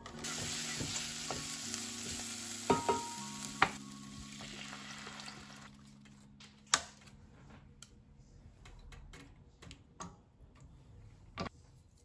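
Food sizzling in a hot saucepan on the stove, dying away about five or six seconds in. A few sharp knocks sound through it.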